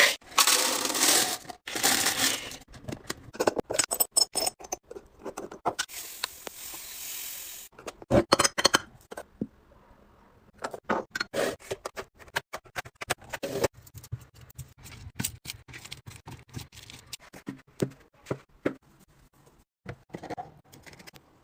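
Close-up kitchen restocking sounds: a rush of pouring at the start, then many small clicks, taps and clinks of glass jars, lids and bottles being handled and set down. A second steady pour comes about six seconds in.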